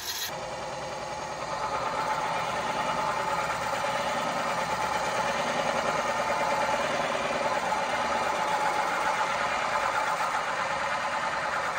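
Wood lathe spinning a red cedar vase blank while a hollowing tool cuts inside it: a steady, rough scraping drone that gets louder about a second and a half in, as the tool bites in, and then holds.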